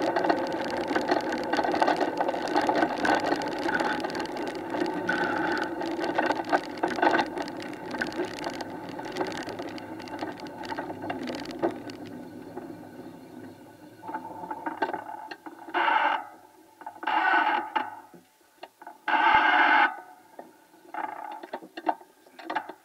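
Three-wheeled gravity racer's wheels rolling fast on a tarmac road, a steady rolling noise that fades over the first twelve seconds or so as the cart slows. Near the end come several short loud bursts of sound.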